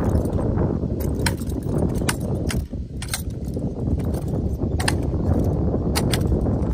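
Drill rifles being spun and caught by hand, about seven sharp clacks at irregular intervals as the rifles are caught and handled. The clacks sit over a steady low rumble.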